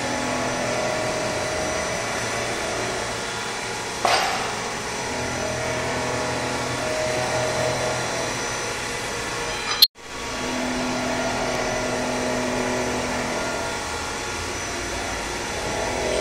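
Old Olivetti milling machine running, a steady mechanical hum with a tone that comes and goes. There is a single knock about four seconds in, and a sharp click with a brief break in the sound near ten seconds.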